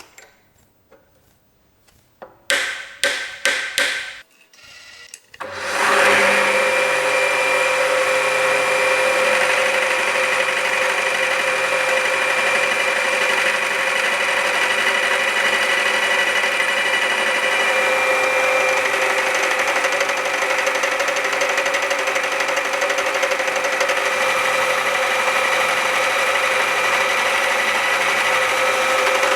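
A few knocks and clicks of setting up a few seconds in, then a metalworking machine tool starts about six seconds in and runs steadily with a constant whine while machining metal.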